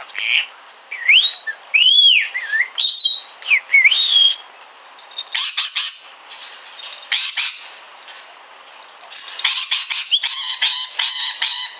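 Rainbow lorikeet whistling and chattering. It gives a few rising-and-falling whistled notes in the first few seconds, then bursts of rapid chatter, the longest and densest in the last few seconds.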